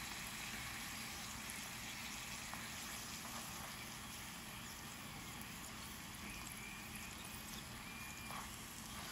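Corn tortilla frying in hot oil in a skillet: a steady, faint sizzle.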